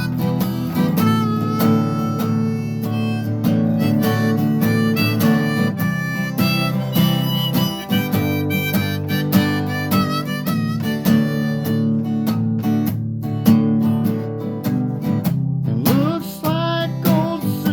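A G harmonica playing a melody over a strummed acoustic guitar, in an instrumental break of a folk-rock song.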